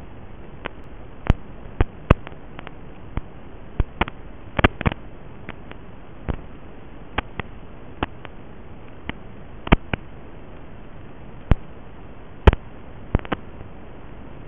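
Static from an analog FPV video link's audio channel: a steady hiss broken by irregular sharp clicks and pops, about one or two a second. No motor sound comes through.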